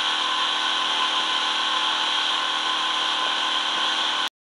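Tiller-steered outboard motor running steadily at speed, a constant engine note. The sound cuts off suddenly near the end.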